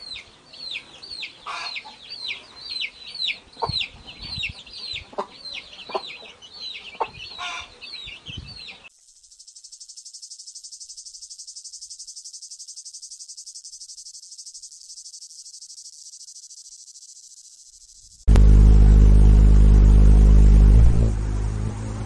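Chicks peeping, a run of quick downward-sliding cheeps. About 9 seconds in, a cicada's steady high buzz takes over. About 18 seconds in, a hummingbird's wings set up a loud low hum.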